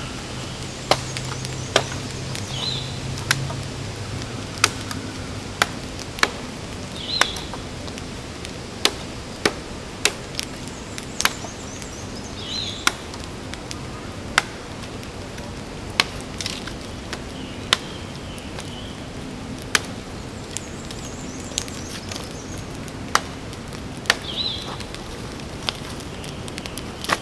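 Firewood being chopped: sharp, irregular strikes of a blade into wood, roughly one a second with short pauses, as wood is cut to feed a campfire.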